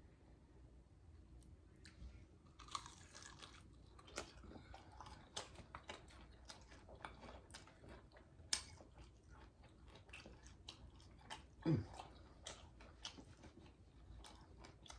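Close-up eating: biting into and chewing crispy, flour-dredged fried chicken wings, with repeated short crunches and wet mouth clicks. There is a brief tone falling in pitch about twelve seconds in.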